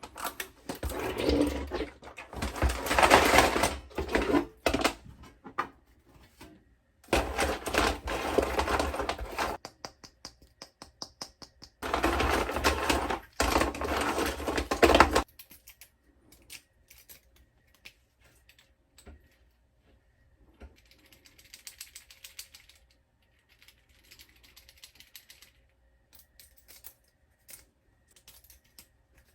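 Rapid clattering clicks of small hard plastic pieces in three bursts of a few seconds each, followed by quieter scattered clicks.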